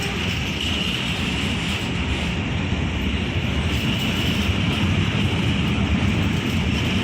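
Train running through the station at speed: a steady, loud rumble of wheels on rails with a rushing hiss.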